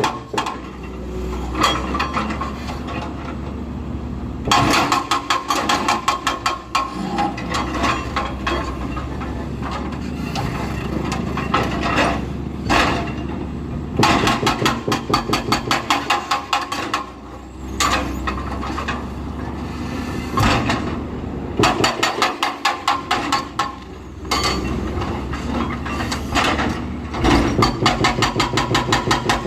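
Powered breaker hammering concrete in bursts of rapid, evenly spaced blows with short pauses between them, over a steady engine drone.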